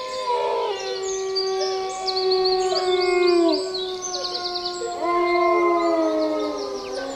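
Several dogs howling together, long drawn-out notes at different pitches that sag at the end. The first chorus breaks off about halfway through and a second starts about five seconds in. Birds sing quick high trills over it.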